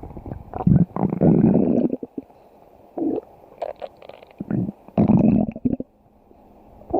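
Stomach growling and gurgling in irregular bursts. The longest, loudest rumbles come about a second in and again about five seconds in, with shorter, quieter gurgles between them.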